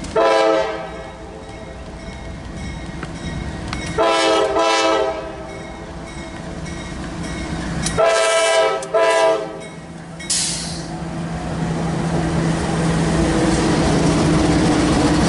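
CSX CM44AC diesel locomotive (a rebuilt GE AC4400CW) sounding its multi-tone air horn in four blasts: one at the start, a longer one about four seconds in, and two short ones close together about eight seconds in. A brief hiss follows, then the locomotive's engine and the loaded coal train's wheels on the rails grow steadily louder as it passes close by.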